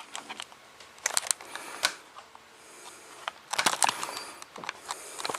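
Camera being handled and zoomed: scattered sharp clicks and knocks, with a faint high whir from the zoom motor in the middle.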